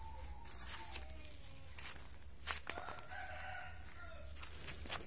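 Rooster crowing faintly about three seconds in, over a steady low rumble, with a few sharp clicks.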